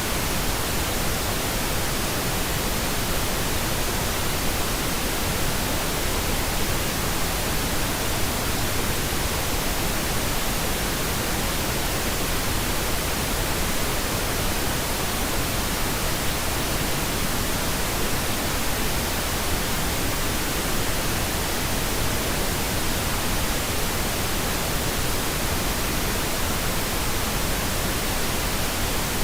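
White noise machine playing steady white noise: an even hiss spread across all pitches, unchanging in level.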